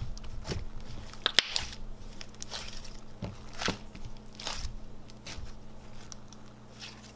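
Hands stretching, poking and folding a thick Daiso clay slime with green beads mixed in, making irregular sticky crackles and small pops as the slime pulls apart and folds over.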